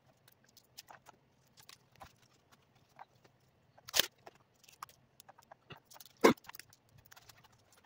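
Light ticks and taps of small parts being handled on a cutting mat, with a sharp knock about four seconds in and a louder one a little after six seconds.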